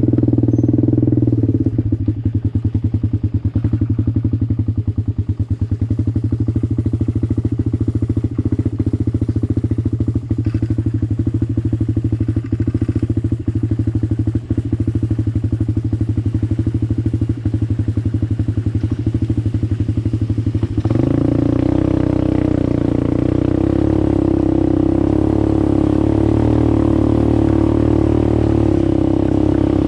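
ATV engine running with a regular, pulsing beat, then picking up revs about two-thirds of the way through and running fuller and steadier.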